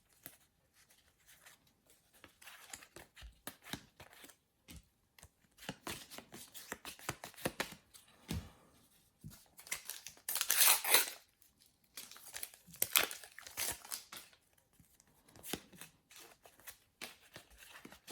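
Football trading-card packets being torn open, with crinkling of the foil wrappers and cards being handled, as irregular crackles and rustles with two louder tearing bursts about ten and thirteen seconds in.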